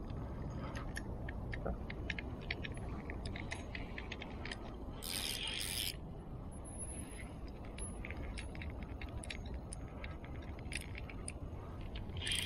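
Small clicks and light rattles of fishing tackle handled close to the microphone, over a steady low wind rumble. A short rustling scrape comes about five seconds in and again at the very end.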